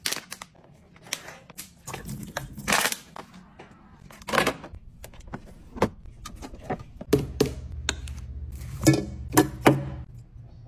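Household items being handled: a run of irregular clicks, taps and knocks from plastic bottles, tubs and containers being picked up and set down on a counter and in a plastic drawer organiser.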